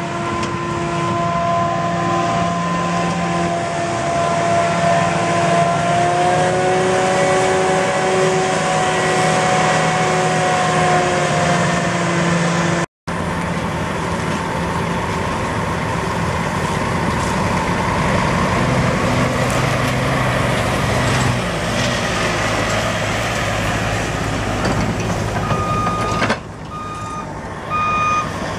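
New Holland FR self-propelled forage harvester running and chopping maize: a loud, steady mechanical drone with a whine. The sound drops out briefly about halfway. Near the end, a truck's reversing alarm beeps in a regular on-off pattern over the machinery.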